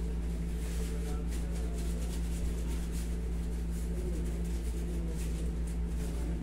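Steady low hum of a room air conditioner, with faint, irregular soft rubbing of a cloth on a knee being massaged.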